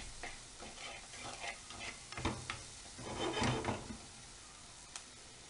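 Chopped onion frying in butter in a metal frying pan, sizzling, while a plastic spatula scrapes and taps against the pan as it is stirred. The stirring is loudest a little past the middle and dies down after about four seconds, leaving a steady faint sizzle.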